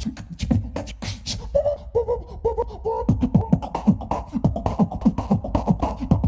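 A solo beatboxer performing live into a handheld microphone through a PA system, with rapid mouth-made clicks and snares. About a second and a half in he hums a short pitched line over the beat. From about three seconds in, a fast, steady kick-and-snare rhythm takes over.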